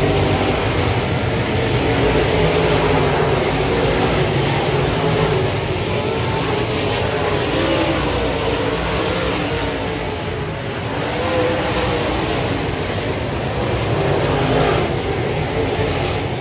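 A field of dirt modified race cars running laps together on a clay oval. Several engines overlap, their pitches rising and falling as the cars go through the corners, over a continuous low rumble.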